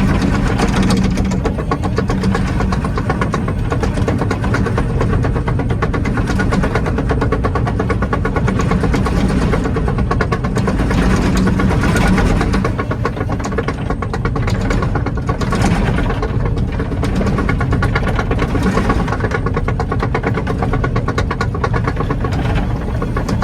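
Kobelco 20-tonne excavator's diesel engine running steadily as the machine tracks through ash, swelling briefly a few times.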